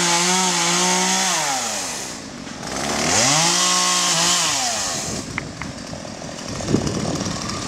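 Chainsaw engine held at full throttle, easing off about a second in, revved back up to the same high pitch around three seconds, then dropping off again about five seconds in. Two short clicks follow as it quiets.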